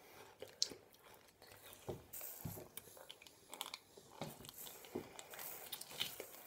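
Faint, irregular crunching and chewing as frozen ice lollies in plastic sleeves are bitten, with small clicks and rustles of the plastic tubes being handled.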